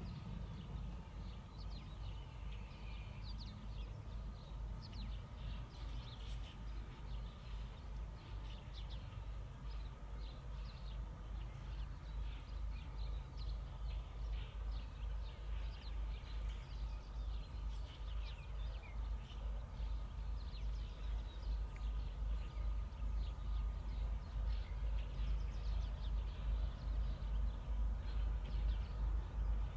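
Many small birds chirping in quick, short calls over a steady low rumble that grows slowly louder toward the end, with a faint steady whine.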